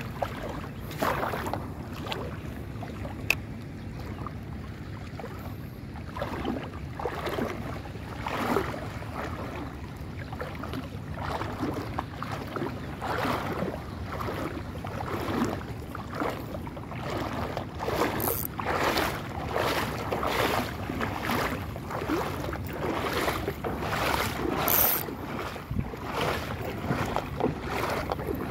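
Shallow seawater lapping and sloshing in irregular surges every second or two, with wind buffeting the microphone.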